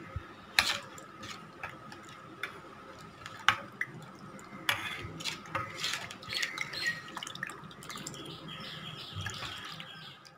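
A steel ladle stirring a thin, watery rasam mixture in a steel bowl: liquid sloshing and splashing, with sharp clinks now and then as the ladle knocks against the bowl.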